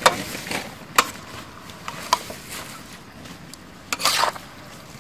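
Metal spatula clinking and scraping against a steel wok while stir-frying shellfish, over a light frying hiss. A few sharp clinks come about a second apart in the first half, and a longer scrape comes near the end.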